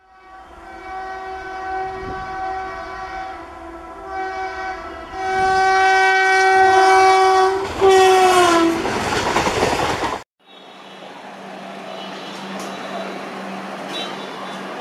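An Indian Railways electric locomotive's horn sounding in several long blasts, the last dropping in pitch as the locomotive passes close by, followed by the loud rush of the train going past. After an abrupt cut, a train rolls past with a steady rumble and a few wheel clicks.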